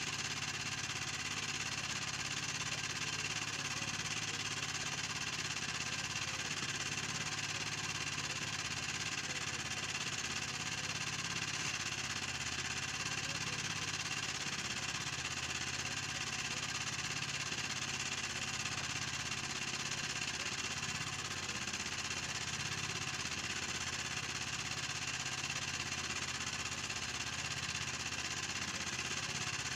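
Small engine running steadily at an even speed, a constant hum with no change through the whole stretch.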